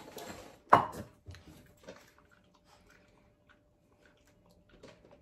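Small dog jumping up for a treat held overhead: a brief scuffle, then one sharp, loud snap about three-quarters of a second in, followed by faint clicks of chewing.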